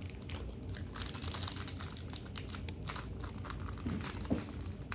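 Plastic snack packaging crinkling and crackling in irregular bursts as a packet is handled and opened.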